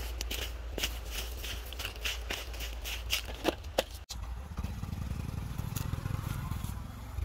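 Irregular scraping, rustling and sharp clicks as a cardboard phone box is handled among plastic rubbish. After a cut about four seconds in, a small Honda step-through motorcycle engine idles with a steady low hum.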